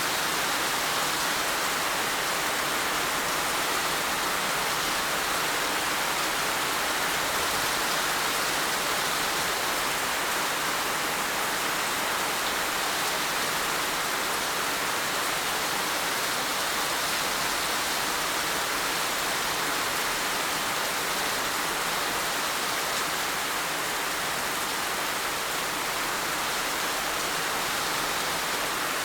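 Heavy rain falling steadily, a dense even hiss without distinct drops or thunder.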